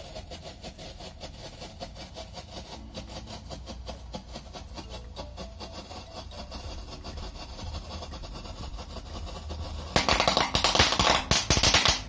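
Firecracker burning inside a plastic jar: a faint crackling hiss, then about ten seconds in a loud rushing hiss for two seconds that cuts off suddenly.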